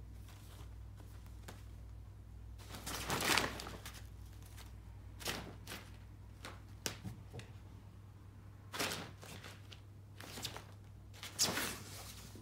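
Kittens' claws scratching and rustling the white fabric of a photo softbox in short, irregular scrapes, a second or two apart, the loudest about three seconds in and near the end. A steady low hum runs underneath.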